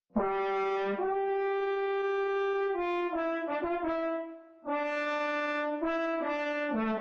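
French horn playing a short phrase of held notes, with a few quicker notes in the middle and a brief break about four seconds in before the notes resume.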